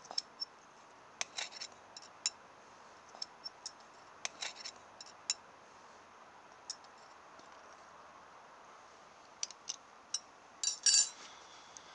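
Scattered metallic clicks and clinks as a knife blade levers at a cordless drill motor's steel can and the armature is freed from it, with a louder, briefly ringing clink near the end.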